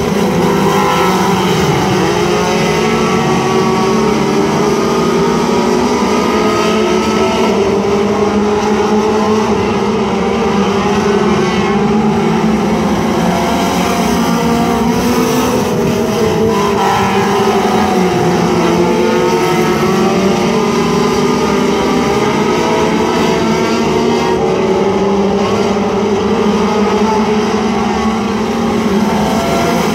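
A field of four-cylinder dirt-track race cars running around the oval together. Several engines rise and fall in pitch as the cars accelerate and pass.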